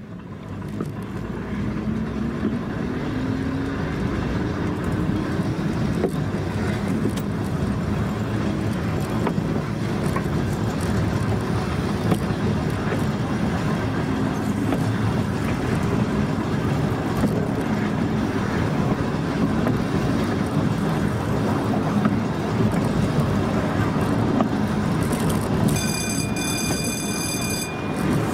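Volk's Electric Railway car running along its narrow-gauge track, with a steady rumble of wheels on rail. The electric motor's whine rises in pitch over the first few seconds as the car gathers speed. Near the end a high, steady warning tone sounds for about two seconds.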